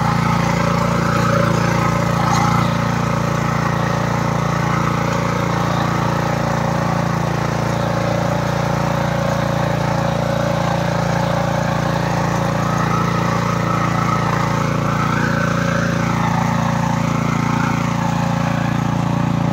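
Engine of a two-wheel walk-behind power tiller running steadily at an even speed as the machine is driven along a road.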